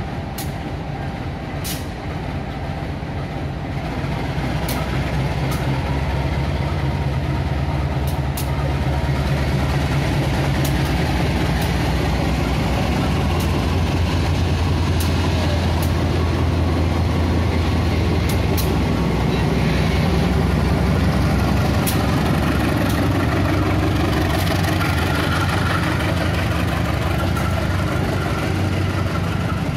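GE CC203-class diesel-electric locomotive passing slowly at close range, its diesel engine running with a steady low drone. The drone grows louder over the first several seconds and stays loud as the passenger coaches follow, with a few scattered clicks.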